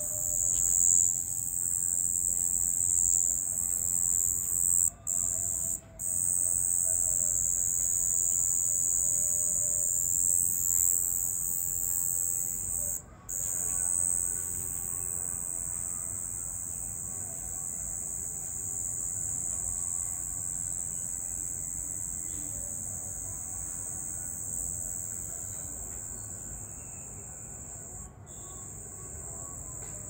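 A dense night chorus of crickets: a continuous high-pitched trill that stops for a moment a few times.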